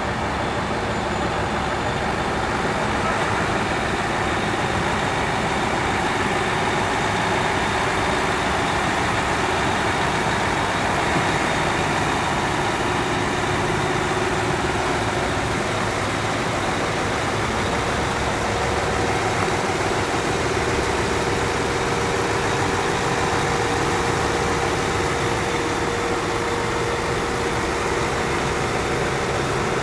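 Heavy Mercedes-Benz Actros truck diesel engines running steadily, with a constant low rumble and no pass-by swell.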